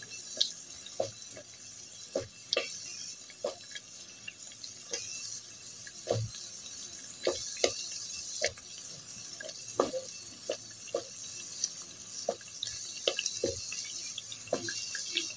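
Half cakes (pieces of sweet dough) deep-frying in oil: a steady sizzle with irregular pops and crackles, several a second, as the pieces brown.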